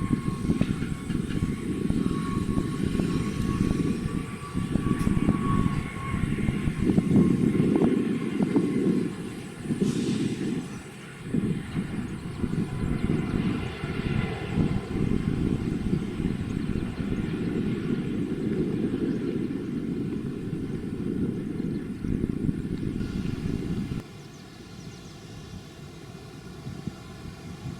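Jet engines of a Boeing 777-300 airliner: a loud, uneven rumble with a faint steady whine over the first few seconds, growing quieter near the end.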